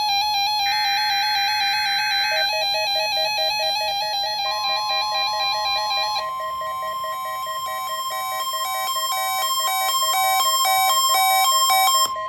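NOAA Weather Radio test signal: the last of the SAME digital header bursts, a buzzy data screech that ends about two seconds in, then the steady 1050 Hz warning alarm tone, which starts about four seconds in and holds. A repeating electronic beeping pattern runs underneath.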